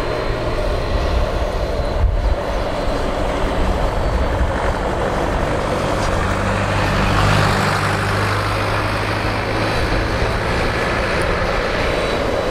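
Boeing 767-300's GE CF6 turbofan engines running at low taxi power as the airliner rolls slowly past: a steady jet roar and hiss with a faint high whine, swelling a little about halfway through.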